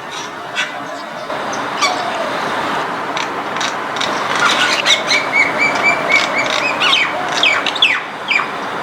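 Common myna calling: a varied string of squawks, chatters and sweeping whistled notes, with a quick series of short repeated notes in the middle, over a steady background noise.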